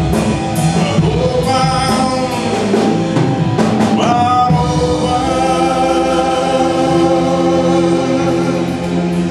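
Live rock band with male lead vocals, electric guitars, bass, drums and piano playing the close of a rock ballad. The drums and cymbals stop about four and a half seconds in, and the band and singer hold one long final chord.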